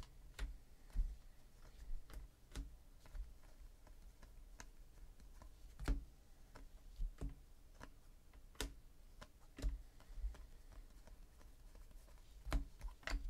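Football trading cards being flipped through by hand and dropped onto stacks: irregular light clicks and taps of card stock, about one every half second to second, with a few sharper snaps.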